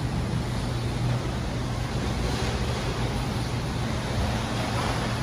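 Light rain falling on a wet city street, a steady hiss over the low, steady hum of traffic and idling cars.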